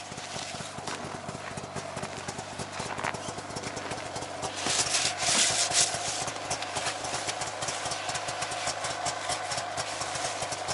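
Two-stroke snowmobile running steadily under way: a fast, even knocking pulse over a steady hum. A louder hissing rush swells for about a second and a half around the middle.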